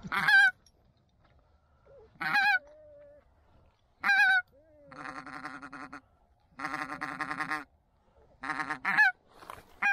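Geese honking close by. Single loud honks come every couple of seconds, with two longer runs of rapid calls between about five and eight seconds in.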